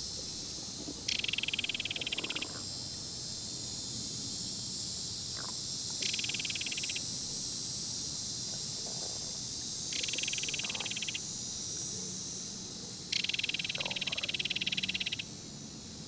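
A steady, high-pitched chorus of insects, broken four times by a rapid pulsed trill lasting one to two seconds each time.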